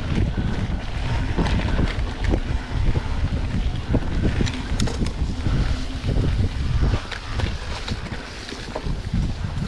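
Mountain bike riding over a dirt singletrack: a constant low rumble of wind on the microphone and tyres on the trail, with frequent clicks and rattles from the bike and camera mount jolting over roots and bumps. It eases off a little near the end.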